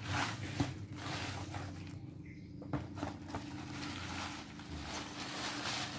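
Paper wrapping crinkling and rustling as it is torn and pulled off an air rifle's wooden stock, over a low steady hum.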